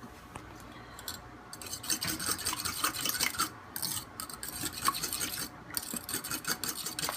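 Eggs and milk being beaten together in a bowl: a utensil scraping and clicking against the bowl in rapid strokes, starting about a second and a half in.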